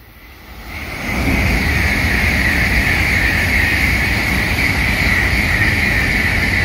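Tokaido Shinkansen N700-series bullet train passing at high speed. Its rush builds over about the first second, then holds loud and steady with a high hiss as the cars go by.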